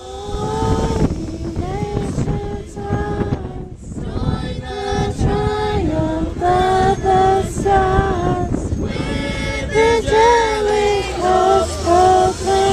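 A family group, children among them, singing a Christmas carol unaccompanied, holding long notes, over the low rumble of the moving tram.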